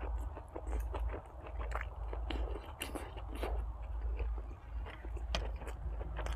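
A person chewing and biting food close to the microphone, with irregular crisp crunches, over a steady low hum.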